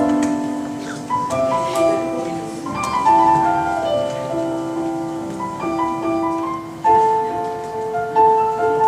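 Instrumental music: a melody of held keyboard notes, changing every half second to a second.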